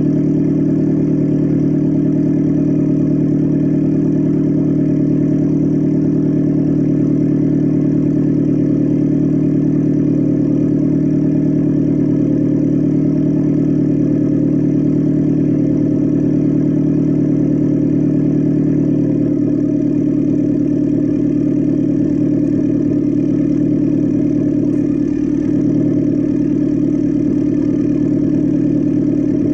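Modified Alfa Romeo MiTo's engine idling steadily after a cold start, with a slight change in tone about two-thirds of the way through.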